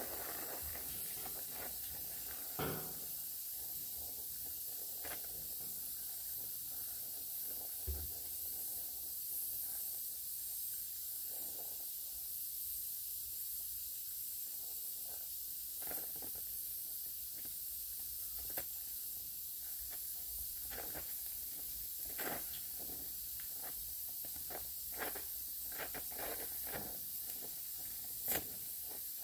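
Gas welding torch flame hissing steadily while steel sheet is welded with a hand-fed filler rod, with short sharp pops now and then.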